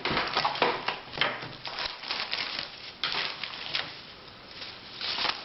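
Irregular clattering and rustling of small tools and objects being handled and moved about on a workbench, as in rummaging for something.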